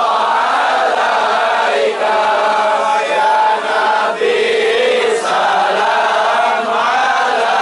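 A crowd of men chanting in unison, a sustained melodic line held with only brief breaks between phrases.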